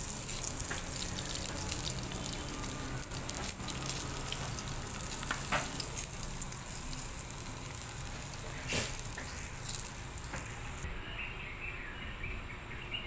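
Flour-and-cornstarch-coated milkfish pieces sizzling steadily in hot oil in a wok, with a few sharp clicks of metal tongs turning them. The sizzle cuts off near the end.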